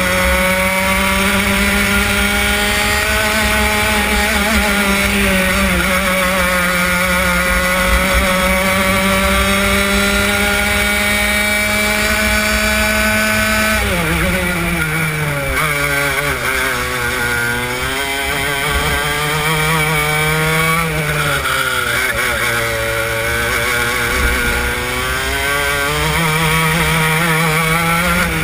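Racing kart engine running flat out, heard onboard: its pitch holds high for the first half, drops sharply about halfway as the kart brakes for a corner, dips and rises several times through the twisty section, and climbs back up near the end.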